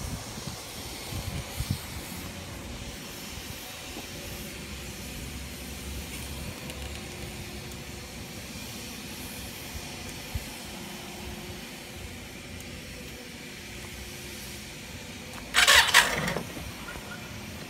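A short, loud blast of a motorcycle horn on a 2000 Yamaha XVS650 V-Star Classic, sounded once near the end over a low steady background.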